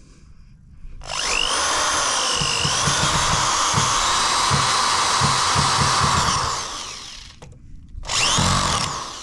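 Corded 300 W Raider RD-CDD03 electric drill-driver driving a wood screw through a metal angle bracket into timber. Its motor whine rises about a second in, runs steadily for about five seconds, and winds down. A second short burst comes near the end.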